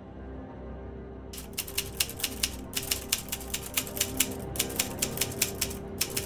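Typewriter keys clacking in a rapid run of keystrokes, starting about a second in and pausing briefly twice, over a low ambient music drone with held tones.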